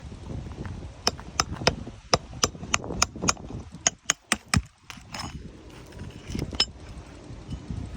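Hammer nailing down a roof shingle: about a dozen sharp blows in quick runs of three or four, then two more near the end.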